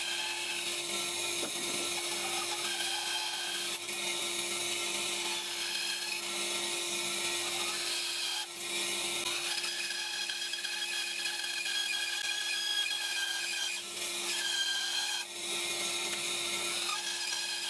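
Bandsaw with a 3/16-inch, 10 TPI wood blade cutting through a thick wooden block: a steady motor hum under the rasp of the blade in the wood. The cutting sound shifts as the work is fed round the curves, with two brief drops about halfway through and near the end.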